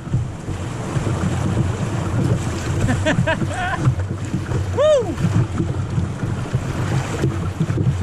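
Rushing river rapids churning around a kayak, with wind buffeting the microphone. A person whoops once about five seconds in, after a few short calls a little before.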